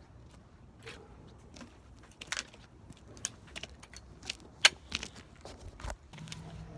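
Irregular knocks, clicks and clatters of objects being handled and moved about, with one sharper knock about two-thirds of the way in.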